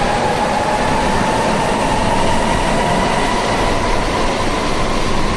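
Sapporo Subway Namboku Line 5000 series train accelerating out of the station: its electric traction motors give a slowly rising whine over a steady rolling noise.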